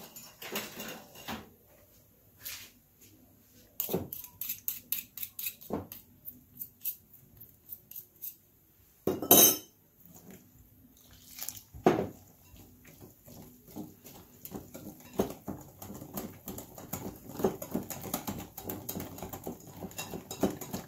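Cutlery clicking and scraping against a mixing bowl as flour and water are stirred together into pizza dough: a run of quick clicks, a loud clatter about nine seconds in and a sharp knock soon after, then steady stirring.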